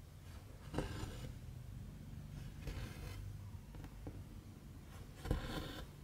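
Needle and thread drawn through cross-stitch fabric: three short rasping pulls, about a second in, around three seconds and near the end, over a low steady room hum.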